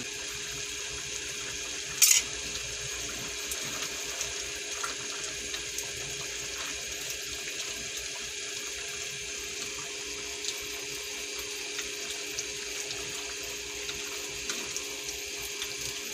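A spatula stirring a thick, simmering sauce in a pan: small scrapes and ticks over a steady hiss, with one sharper, louder scrape about two seconds in.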